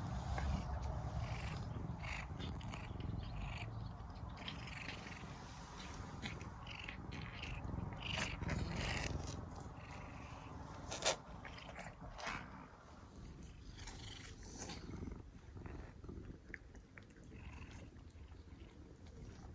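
Several cats licking churu paste treats, with many small wet smacking and clicking sounds over a low steady rumble; one sharper click stands out about eleven seconds in.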